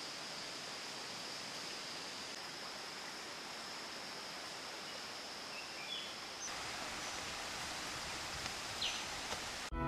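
Faint, steady rush of a rocky forest stream, with a thin, steady high hum over it and a few short chirps.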